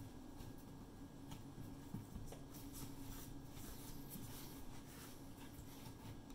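Faint rustling and light taps of hands kneading and shaping a ball of dough on a wooden cutting board, over a steady low hum.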